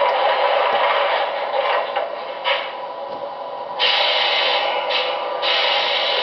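MTH R-26 O-gauge subway set's onboard sound system playing subway running sounds: a steady electric motor hum with rushing rail noise that comes and goes, louder from about four seconds in.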